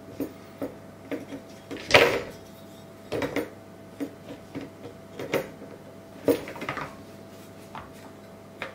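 Irregular clicks and knocks of hard plastic parts of a washing-machine door being handled and fitted together, with one louder knock about two seconds in. A faint steady hum runs underneath.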